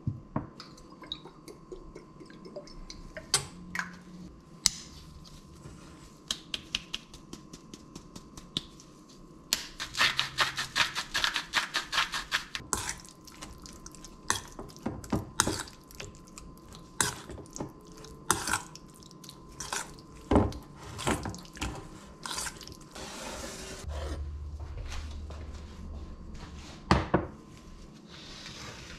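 Metal spoon clinking and scraping against a stainless steel mixing bowl while chicken is stirred in sauce, with a fast run of clinks about ten seconds in. A few single louder knocks follow later on.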